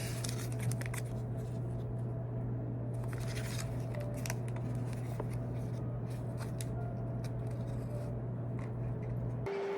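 A steady low hum with scattered light clicks and small handling noises. About nine and a half seconds in, the hum stops and a steady higher-pitched tone takes over.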